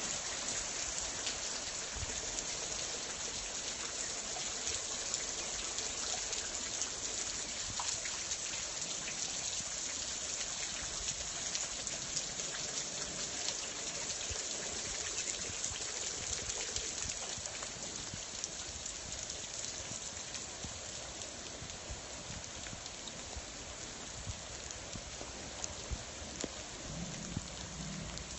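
Steady hurricane rain falling on trees, ground and a porch roof. A constant hiss is flecked with many separate close drop hits and eases slightly in the second half.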